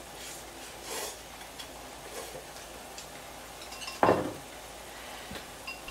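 Eating sounds of instant ramen: noodles being slurped and chopsticks clicking against bowls, with one louder thump about four seconds in.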